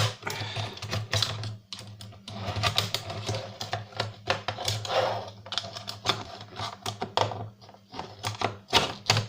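Hard plastic parts of a DVD drive being pried and wrenched apart: a dense run of irregular clicks, cracks and scrapes as the stuck drive mechanism is worked loose. A steady low hum runs underneath.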